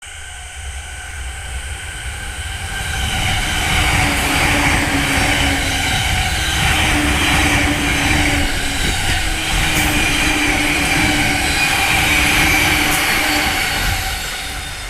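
Electric trains (an E235 series commuter train and an E259 series Narita Express) running past at close range, wheels on rail with a steady motor hum. The noise builds over the first few seconds, holds for about ten seconds, then fades near the end.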